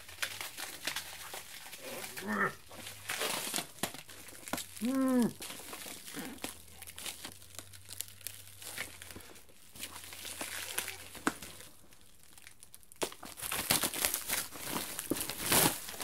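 Cardboard box and packaging being pulled and torn open, with irregular crinkling, rustling and tearing. A short voiced sound that rises and falls comes about five seconds in.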